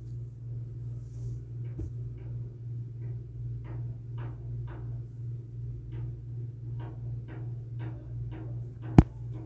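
Fingertips pressing shredded mozzarella into the hollows of raw bread dough in a metal pan: a run of soft dabs, about two to three a second, over a steady low hum. A single sharp knock near the end.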